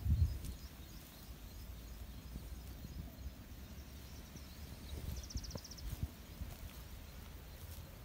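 Outdoor ambience on a handheld phone microphone: a low rumble of wind and handling noise with a few soft knocks about five to six seconds in, and a brief, fast, high-pitched ticking trill just after five seconds.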